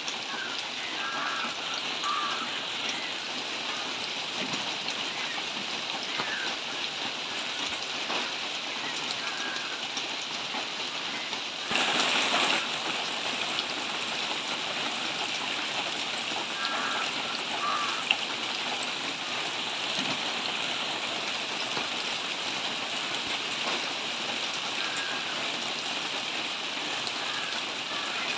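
Steady rain falling on leaves and vegetation, an even hiss of drops, which grows briefly louder for about a second near the middle. A few faint chirps and one sharp click sound over it.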